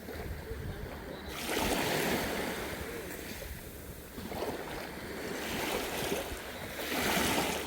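Small waves of a calm sea washing in, swelling twice: about a second and a half in, and again near the end.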